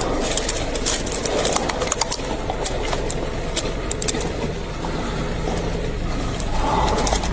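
A vehicle engine idling steadily, with many sharp clicks scattered over it.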